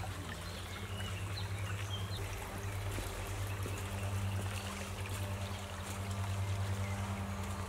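Small shallow stream running over stones, a steady flow of water with a constant low hum underneath.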